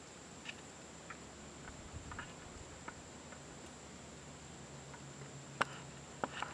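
Quiet outdoor ambience: faint scattered small clicks and ticks over a steady faint high whine, with one sharper click about five and a half seconds in.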